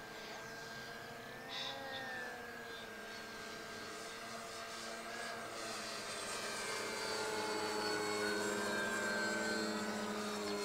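Electric motors and propellers of Flex Innovations RV8 RC planes whining in flight: several steady tones that drift a little in pitch and grow slowly louder.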